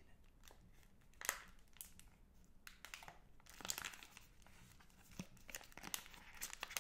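Crinkling of the plastic-film wrappers of two Magnum Double Chocolate bars being squeezed and turned in the fingers: faint, scattered crackles with louder clusters about a second in, around the middle and near the end.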